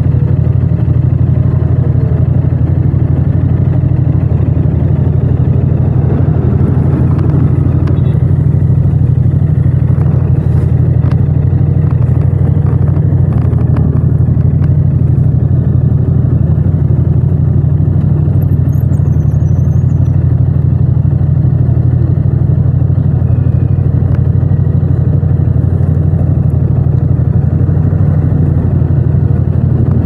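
Yamaha MT-07's parallel-twin engine idling steadily while stopped, with surrounding motorcycles and traffic running around it.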